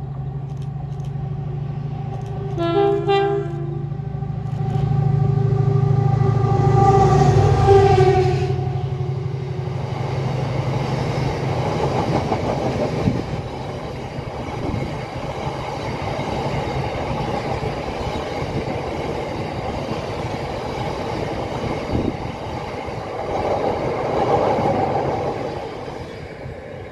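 Freight train passing through a station at speed. The locomotive sounds a short horn blast about three seconds in, its engine drone swells as it runs past, and then a long rake of box wagons rumbles and clatters by, dying away at the end.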